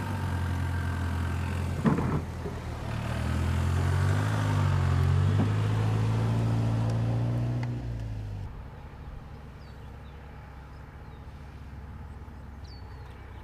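Toyota Land Cruiser SUV engine running at low, steady revs as it crawls over a rutted dirt trail, with a single knock about two seconds in and the revs shifting a little midway. After about eight seconds the engine sound drops away, leaving quieter outdoor ambience with a few faint high chirps.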